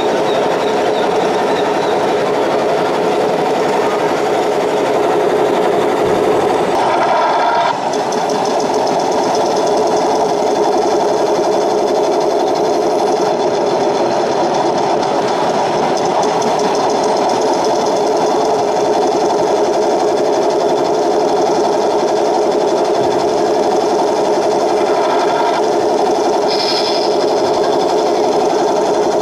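Radio-controlled scale semi truck running with a steady, fast buzzing whirr. The buzz shifts briefly about eight seconds in.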